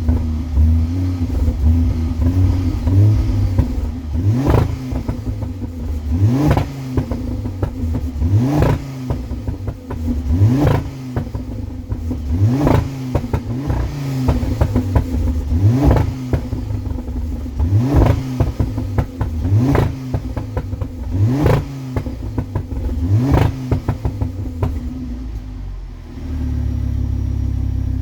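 Ford Focus ST Mk2's turbocharged five-cylinder engine, breathing through a 76 mm downpipe, Milltek sports cat and resonated Milltek cat-back exhaust, blipped from idle about every two seconds. Each rev rises and falls, with crackles from the exhaust as it drops, and it settles back to a steady idle near the end.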